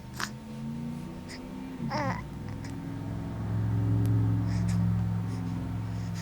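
A sleeper with hiccups: a short sharp hiccup just after the start and a squeaky one about two seconds in, among low, drawn-out groaning sounds that are longest and loudest from about three to six seconds in.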